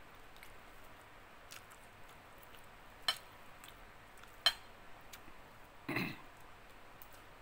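Faint eating sounds of a person eating fried fish with their fingers: sharp clicks about three and four and a half seconds in, and a short louder smack about six seconds in.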